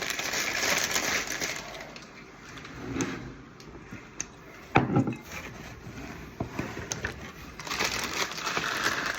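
Packing paper being crumpled and handled as a box is unpacked, with a few sharp clicks and a loud thump about five seconds in.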